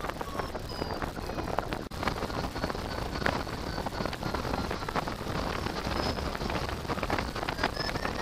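Wind rushing and buffeting over the microphone of a camera mounted on a hang glider in flight, a steady crackling rush with many small clicks. Faint short electronic beeps from the glider's variometer shift in pitch throughout.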